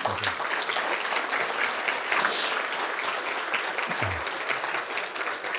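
Audience applauding a roomful of clapping hands, steady throughout, briefly louder a little over two seconds in.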